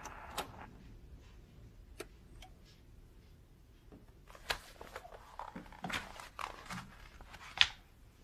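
Quiet handling sounds as records are taken from a shelf: scattered soft knocks and rustles, with one sharp click near the end.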